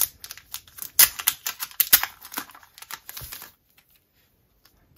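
A sealed trading card pack being handled and torn open: a quick run of crackles and rustles from the wrapper and paper envelope that stops about three and a half seconds in.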